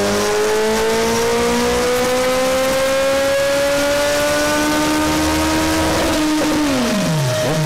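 1,250 cc motorcycle engine pulling under load on a chassis dynamometer, its pitch climbing slowly and evenly for about six seconds. Near the end the throttle closes and the revs drop quickly. This is the check run after a fuel pump fault that starved the injectors at high load was fixed.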